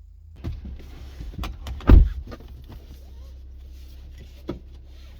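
A run of clicks and knocks with one loud thump about two seconds in, over a steady low hum.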